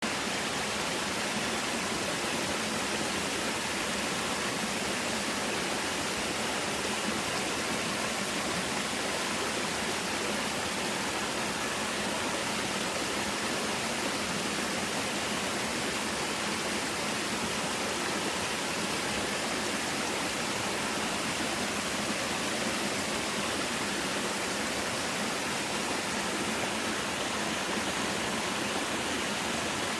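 Waterfall pouring into a mountain stream: a steady, even rush of falling water.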